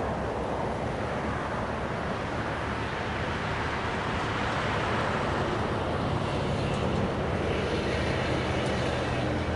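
Union Pacific diesel locomotive approaching at the head of a freight train, its engine a low steady hum that grows louder from about six seconds in, over a continuous rushing noise.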